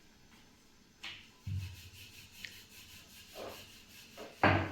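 Kitchen handling noises: faint rubbing and scraping with a few short knocks, the loudest about four and a half seconds in.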